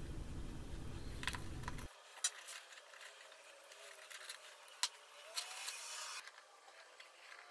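Faint metal clicks and a short scrape as a steel C-clamp is fitted and screwed down onto a square steel tube canister. A low hum cuts off suddenly about two seconds in.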